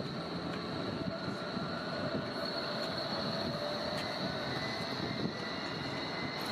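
A BVG low-floor articulated tram passes at a distance, with a steady high whine and fainter lower tones over a steady wash of rolling and traffic noise.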